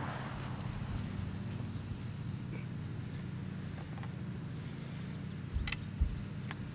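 Steady high insect drone with a low hum beneath, as the echo of a rifle shot dies away at the start. Near the end come two soft thumps and a few sharp clicks.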